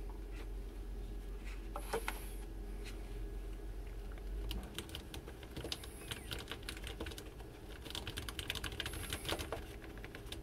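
Typing on a compact, low-profile staggered prototype keyboard: a few scattered key clicks at first, then quick, continuous keystroke clatter from about halfway through.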